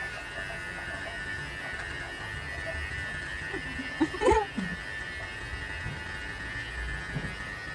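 Xiaomi Enchen Hummingbird electric hair clipper running with a steady high buzz while trimming hair at the side of the head. A brief laugh comes about four seconds in.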